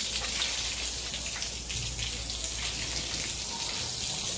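Water from a hose splashing and pattering on a hard floor: a steady hiss full of small drip ticks, over a faint low hum.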